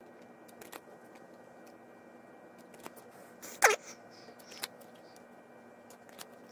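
Quiet handling of trading cards with a few faint clicks, and about halfway through a short, loud cry that falls sharply in pitch.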